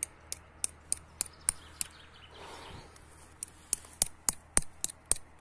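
Sharp, high-pitched ticks repeated about three times a second, broken by a short pause with a soft rustle near the middle before the ticking resumes.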